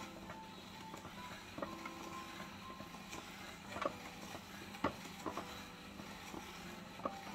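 Hand-crank plastic spiralizer cutting a carrot into spiral ribbons: a run of small clicks and knocks from the blade and crank, the sharpest about four and five seconds in.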